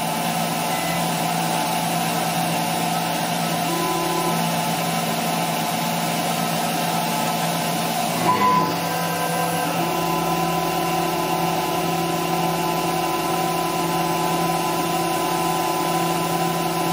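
CNC router spindle running steadily while a small flat-ended cutter mills through clear acrylic, with compressed air hissing from a nozzle aimed at the cut. A brief disturbance comes about eight seconds in, and a further steady tone joins shortly after.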